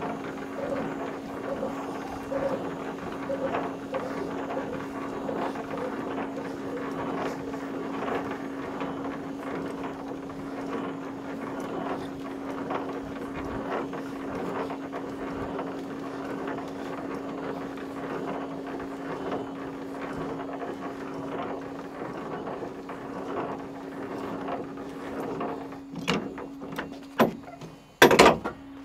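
Idling truck engine with a steady hum, mixed with irregular clanks and rattles. Near the end the hum stops and a few sharp metallic knocks follow, the loudest of them shortly before the end.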